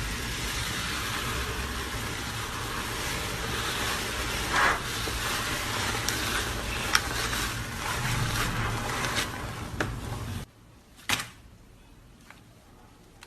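Slime being squeezed and worked by hand: a dense crackling hiss with scattered sharp pops, which drops away suddenly after about ten seconds to a quiet background with a few faint clicks.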